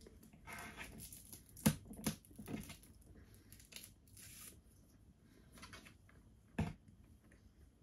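Crinkling and tearing of the thin plastic wrapper on a Capri-Sun drink pouch's straw as it is pulled open, with the pouch handled, and a few sharp clicks, the loudest about two seconds in and another near the end.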